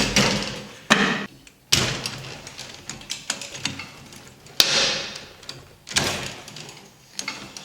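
Hard parts of a home-built juggling machine being handled and moved: a handful of sharp knocks and clacks spread out, each trailing off in a short scraping rustle.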